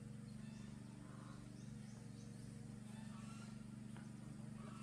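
Quiet outdoor ambience: a steady low hum with a few faint, brief high-pitched chirps scattered through it.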